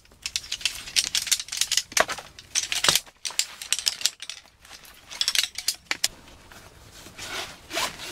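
Aluminium poles of a folding camp chair frame clattering and clicking as they are unfolded and snapped into their hub, in quick bunches of sharp clicks. Near the end it gives way to softer rustling as the chair's fabric seat is handled.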